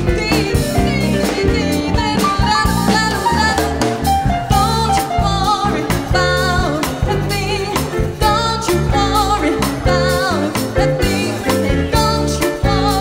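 Live jazz-funk band playing: a female vocalist sings with vibrato over electric keyboard, electric bass and drum kit.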